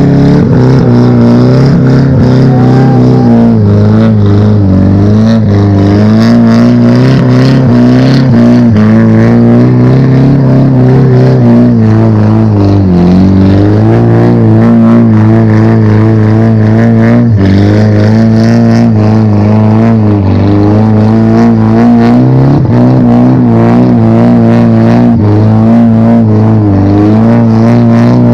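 Car engine revved hard and held at high rpm for a long stretch, its pitch wavering and dipping briefly now and then.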